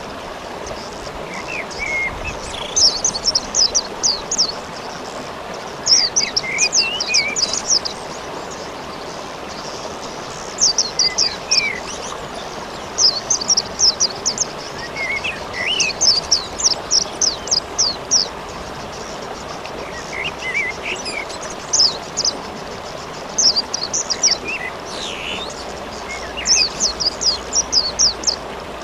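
Steady rain with small songbirds chirping in quick bursts of rapid high chirps every few seconds, and a few lower call notes in between.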